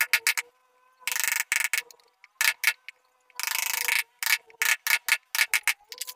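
Carving chisel being struck with a wooden mallet block as it cuts into a wooden door panel: runs of sharp knocks, with two longer stretches of fast, rattling strokes, about a second in and past the middle.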